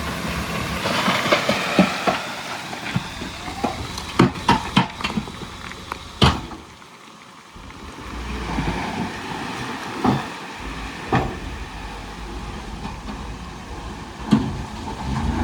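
Heavy diesel earthmoving machinery moving loose stone: repeated sharp knocks and clatter of rock over an engine hum, the clatter thickest in the first six seconds and again about ten seconds in, with the engine dropping away briefly around seven seconds in.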